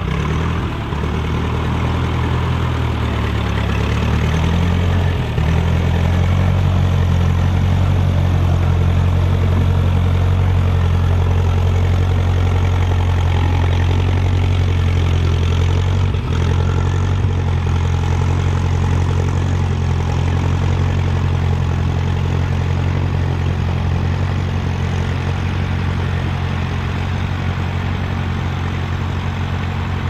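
Ferguson TE20 tractor engine running steadily under load while pulling a two-furrow plough through the soil. Its pitch wavers slightly over the first few seconds and then settles into an even, continuous drone.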